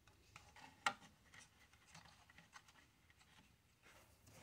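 Near silence with faint rubbing and small clicks of plastic model parts being handled and pressed together, with one sharper click about a second in.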